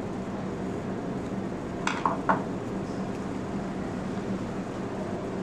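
A few sharp small clicks from a Phillips screwdriver and the plastic parts of a CPR manikin's bellow as a screw is driven in to hold the new clicker blade, about two seconds in, over a steady room hum.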